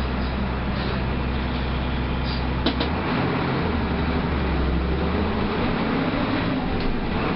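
Mercedes-Benz OF 1318 bus's diesel engine running steadily, with a sharp click about two and a half seconds in and the engine note changing just after.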